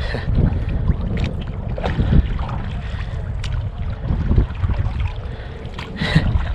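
Wind buffeting the microphone in a canoe, a steady ragged rumble, with the splash and drip of canoe paddle strokes and a few brief sharp knocks.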